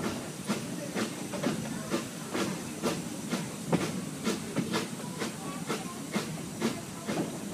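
Steam locomotive running slowly, its exhaust chuffing in an even beat of about two a second over a steady hiss.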